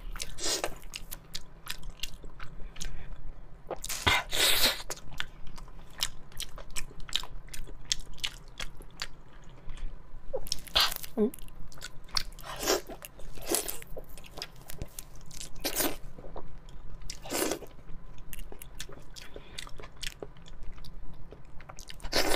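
Close-miked chewing of steamed fish eaten by hand: many small wet mouth clicks throughout, broken by about seven louder, longer noisy bursts.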